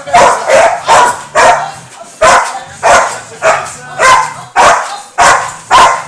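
A dog barking loudly over and over, in a steady run of about two sharp barks a second.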